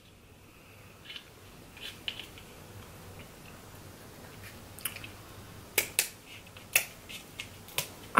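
Crab-leg shell being cracked and picked apart by hand: a scattered run of sharp snapping clicks, louder around the sixth and seventh seconds, with a little chewing between them.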